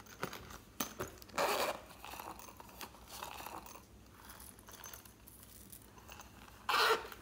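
Silicone cartoon-cat coin purse being handled: a few light taps, then a short rasping burst as it is unzipped, soft rubbery rubbing in the middle, and a second, loudest rasp near the end as it is zipped shut.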